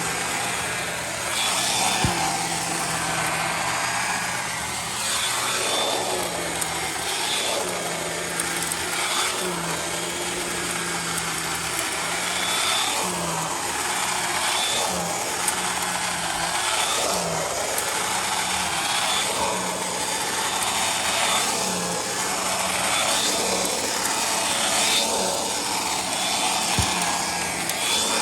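Bissell Pet Hair Eraser Turbo vacuum running, its air-driven turbo pet tool worked back and forth under firm pressure, the whir swelling and fading with each stroke. The tool bogs down a little under the pressure.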